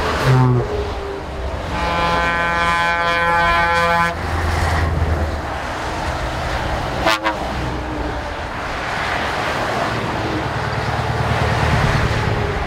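A convoy of heavy trucks drives past with engine and tyre noise. About two seconds in, a truck's air horn sounds one steady chord for about two seconds.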